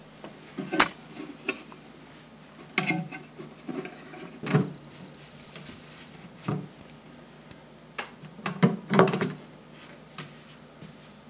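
Wooden dome carrying-case cover of a vintage Singer sewing machine being handled and fitted onto its base: a series of irregular wooden knocks and clunks, with the loudest near the start, in the middle and in a quick cluster about nine seconds in.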